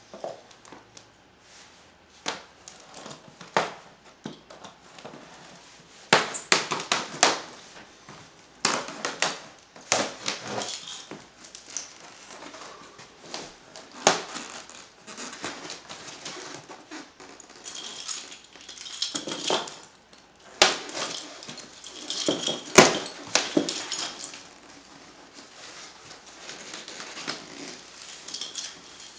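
Yellow plastic-and-tape shipping wrap around a guitar package, crinkling and ripping as it is pulled open by hand: irregular rustling with sharp crackles, in several loud spells.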